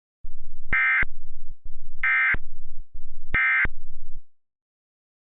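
Emergency Alert System end-of-message tones: three short bursts of SAME data warble about a second apart, each over a loud low pulsing buzz that cuts off just after the third burst.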